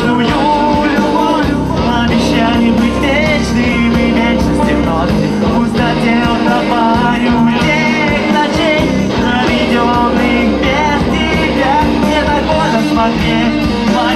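Live rock band playing loud, with electric guitars, bass and drums and a singing voice.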